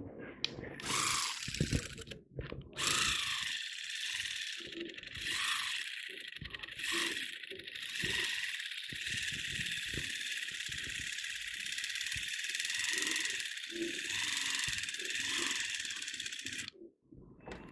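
Electric knife running, its blades sawing through pumpkin with a steady buzz and irregular rattling knocks. It starts about three seconds in and stops suddenly about a second before the end.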